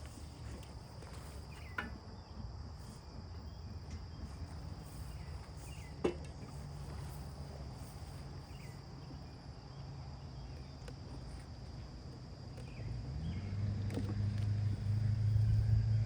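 Honeybees buzzing around an open hive: a steady low hum that grows much louder about three-quarters of the way through as bees fly close. There are two short sharp knocks early on.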